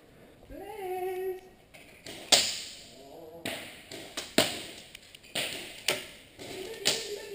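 Airsoft 1911 pistol firing single shots: several sharp cracks spaced about half a second to a second apart, the loudest about two seconds in, each ringing briefly in the echoing hall.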